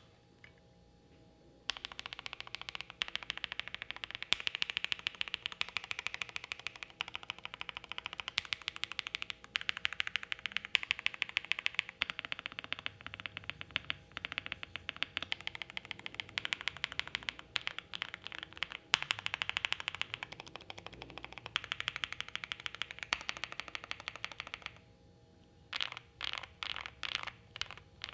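Fast continuous typing on a Jelly Epoch gasket-mount mechanical keyboard with lubed Creampaca switches on a polycarbonate plate with case foam and GMK keycaps: a deep, muted, marble-like clack on each stroke. It starts a little under two seconds in, breaks off briefly near the end, and then resumes as slower, separate keystrokes.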